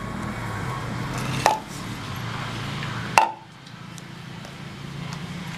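Two sharp knocks of kitchen utensils during roti making, the second louder and ringing briefly, over a steady low hum.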